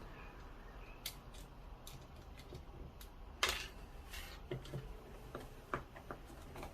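Faint, scattered clicks and taps of small metal tools and lock parts being handled while a mortice sashlock is worked on, one sharper click about three and a half seconds in.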